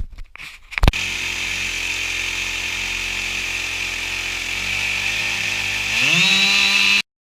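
Husqvarna 572XP two-stroke chainsaw starting with a sharp burst about a second in, then running steadily. About six seconds in it revs up higher and louder, and the sound cuts off abruptly.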